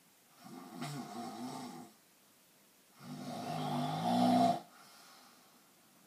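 Snoring: two snores about two and a half seconds apart, the second louder and longer.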